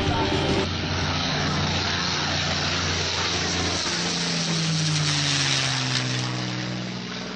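P-51D Mustang's Merlin V-12 engine and propeller on a low fly-past: a steady drone that grows louder, then drops in pitch as the fighter passes about halfway through and begins to fade near the end.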